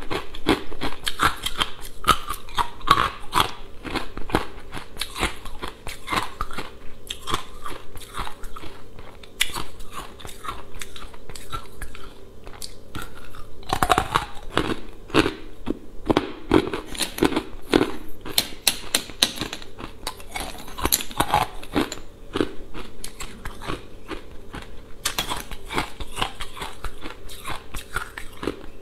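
Carbonated ice being bitten and chewed close to a clip-on microphone: a dense, continuous run of crisp cracks and crunches, with a cluster of heavier bites around the middle.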